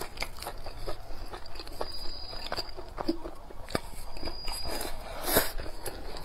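Close-up eating sounds: chewing and biting into food, heard as a run of short wet clicks and smacks, with one louder, longer bite about five seconds in.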